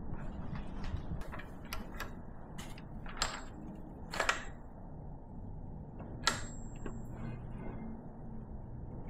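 Plastic intake manifold of a BMW M57 diesel engine being handled and set down onto the engine: a series of light clicks and knocks, the loudest about three, four and six seconds in.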